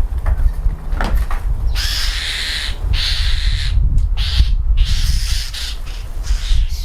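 Garden birds giving a run of harsh, raspy calls, starting about two seconds in and repeating with short gaps, over a steady low rumble.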